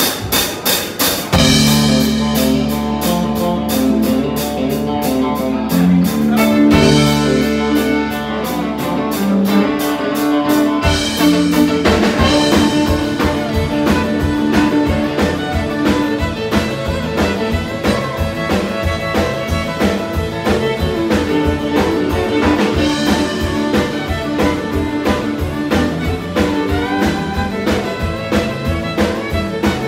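Live country band playing an instrumental passage: fiddle carrying the melody over acoustic guitar, electric bass and drums. A steady drum beat takes hold about eleven seconds in.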